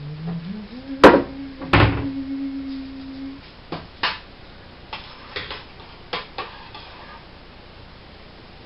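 Two sharp knocks a little over half a second apart about a second in, from a kitchen wall cupboard door being handled, over a steady hum that rises in pitch at the start and stops after about three and a half seconds. Several lighter clicks and knocks follow as things are handled at the stove.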